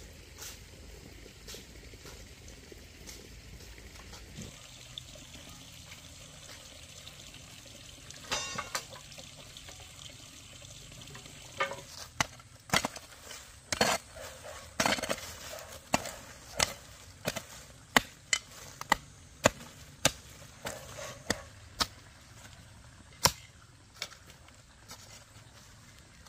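Hand hoe chopping into dry earth to dig a trench: sharp, repeated strikes about one or two a second through the second half. Before that, only faint footsteps.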